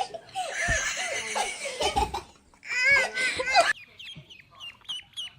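People laughing, then a bird chirping: a run of short, high, falling chirps, about four a second, in the last part.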